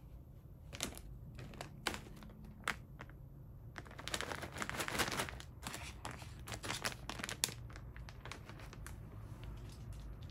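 Crinkling of a plastic food or treat bag held in the hand: a few single crackles, then a dense spell of rustling from about four to seven and a half seconds in, shaken to lure a dog closer.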